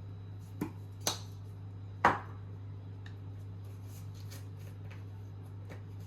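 Three sharp knocks from kitchen work, about a second in, soon after and near the two-second mark, the last the loudest, over a steady low hum, with a few faint ticks afterwards.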